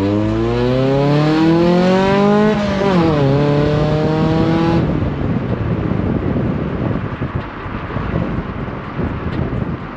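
Car engine accelerating hard, rising in pitch, with a sharp drop at a gear change about three seconds in, then pulling again. The engine sound cuts off suddenly about five seconds in, leaving wind and road noise.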